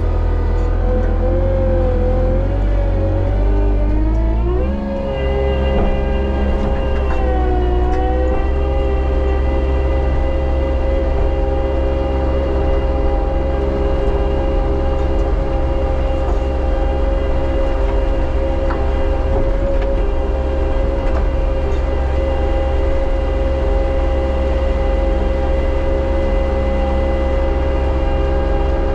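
Bobcat T77 track loader's engine and hydraulics running under high revs, a steady pitched drone over a low rumble. The pitch climbs about four to five seconds in, dips briefly a few seconds later, then holds steady.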